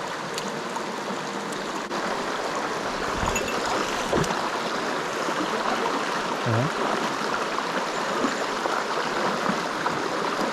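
Mountain stream water rushing steadily over rocks, a little louder from about two seconds in.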